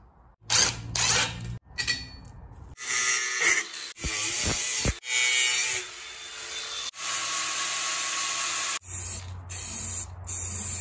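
Cordless power tool running in several bursts, the longest lasting several seconds, as the old lever steering is cut and stripped from the metal chassis. Near the end come short hisses from an aerosol spray can.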